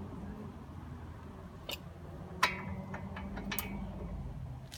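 A few light metallic clicks and taps as a brake pad spring clip is worked into the caliper bracket, the sharpest about halfway through with a brief ring, over a low steady hum.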